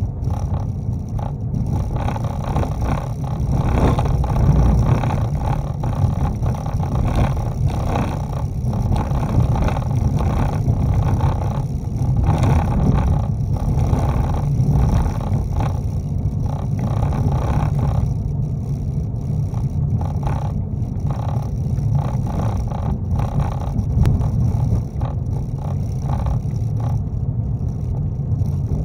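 Car driving on a gravel road at about 25 mph, heard inside the cab: a steady low rumble of tyres and engine with frequent small crackles and ticks from the gravel.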